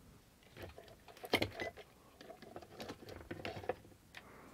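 Faint, scattered clicks and rustles of small objects being handled by hand, the loudest about a second and a half in, then a short run of them near three seconds.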